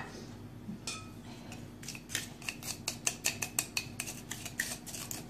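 Kitchen containers and utensils being handled as salt is fetched: a single click about a second in, then a quick run of sharp clicks and taps, several a second, easing off near the end.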